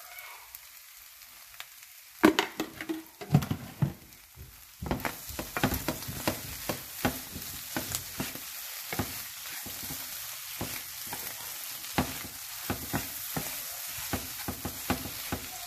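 Clam meat frying in a nonstick pan with freshly added oil, sizzling, while a wooden spatula stirs it with many short knocks and scrapes against the pan. Fairly quiet for the first two seconds; the steady sizzle comes up about five seconds in.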